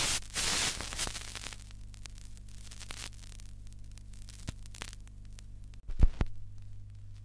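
Static hiss over a steady low hum, with scattered clicks; a loud burst of hiss fills the first second. About six seconds in, chalk strikes the chalkboard twice in quick succession.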